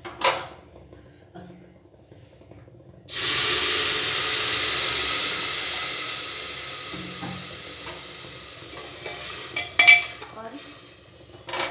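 Milk poured into a hot aluminium pressure cooker of ghee-roasted dalia, setting off a sudden loud sizzle about three seconds in that slowly dies away. A spoon clinks against the cooker near the end as the mixture is stirred.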